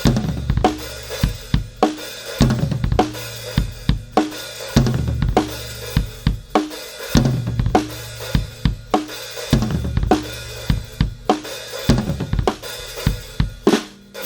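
Acoustic drum kit playing a steady groove of kick, snare, hi-hat and cymbals, picked up through a Yamaha EAD50 module on its dry setting, over a sustained low bass line.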